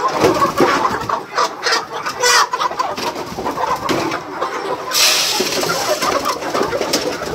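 A flock of chickens clucking and calling together, many short overlapping calls. About five seconds in, a brief burst of hissing or rustling noise rises over the calls.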